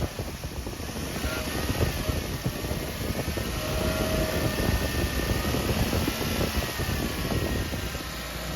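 Suzuki Jimny engine running, with a faint wavering whine over it from the failing bearing in the aircon and power steering belt tensioner pulley.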